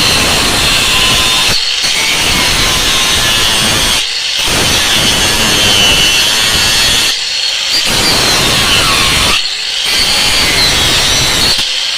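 Power saw cutting through wood, running with a steady high whine and stopping for brief moments every two to three seconds.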